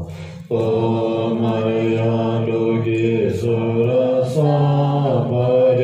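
Group of voices chanting a Buddhist mantra in unison: long, level-pitched phrases of a few seconds each, with a short break about half a second in and shifts in pitch between phrases.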